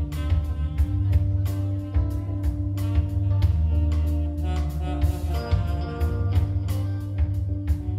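Jazz-fusion band playing live: a steady bass line under guitar, with drum-kit hits keeping time.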